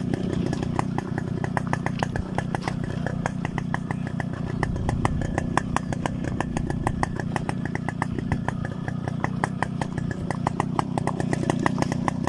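Two-stroke single-cylinder Yamaha RX motorcycle engine running at low speed over a rocky dirt track, with a steady run of sharp clicks and rattles all through.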